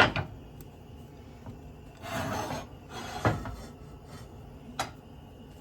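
Kitchen things being handled: a sharp knock, then two short scraping rubs about two and three seconds in, and a light click near the end.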